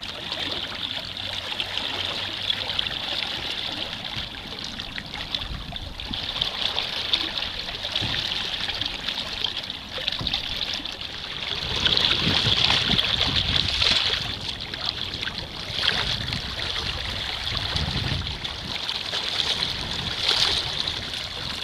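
Water lapping and trickling against the plastic hull of a sit-on-top fishing kayak, a steady shifting splashing with an uneven low rumble that swells around the middle.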